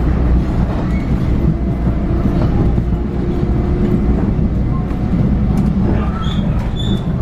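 Inside a moving Long Island Rail Road commuter train: the steady low rumble of the car running on the track, with a few clicks and short high squeaks near the end.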